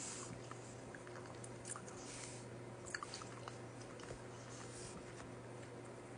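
Close-miked mouth sounds of someone eating Buldak ramen noodles: soft wet chewing with scattered small smacks and clicks, over a faint steady low hum.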